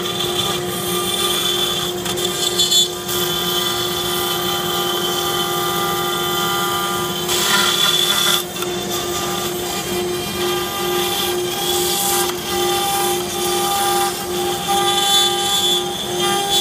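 CNC router spindle running with a steady high whine while its bit mills contoured terraces into a plywood mold, over the hiss of the cut. The cutting noise swells for about a second near the middle, and the whine wavers about twice a second in the later part.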